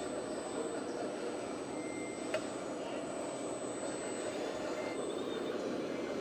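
Radio-controlled construction model running with a steady mechanical hum, with a single sharp click about two and a half seconds in.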